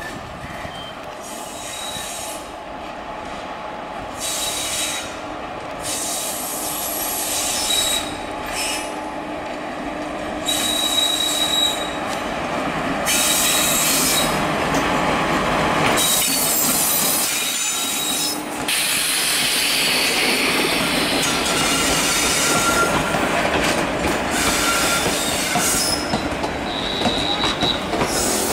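Express passenger train hauled by a WAP-4 electric locomotive running along the track, its steel wheels rumbling on the rails with short high-pitched squeals that come and go. It grows louder over the first dozen seconds as the train comes closer, then stays loud.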